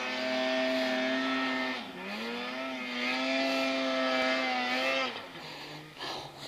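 Snowmobile engine running at high revs with a steady pitch. It dips briefly about two seconds in, climbs back up, then drops to a lower, quieter steady pitch about five seconds in.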